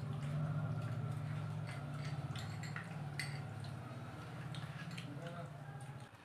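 Spoons clicking and scraping against bowls and plates as people eat, with small taps throughout, over a steady low drone that stops about six seconds in.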